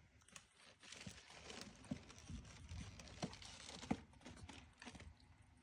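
Faint rustling with a few light knocks and clicks, as of something being handled close to the microphone.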